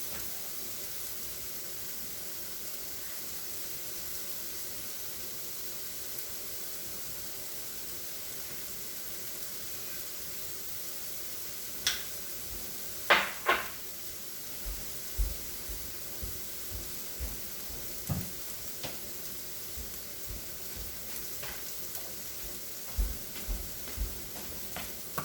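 Pea-protein taco filling sizzling in a hot pan, a steady frying hiss. From about halfway through, a utensil adds sharp clinks and low knocks against the pan.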